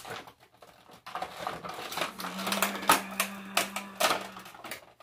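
Clear plastic blister packaging crinkling and crackling in quick, irregular clicks as an action figure is pulled and worked free from its moulded tray.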